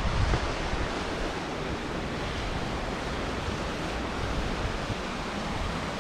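Steady outdoor wind rushing over the microphone.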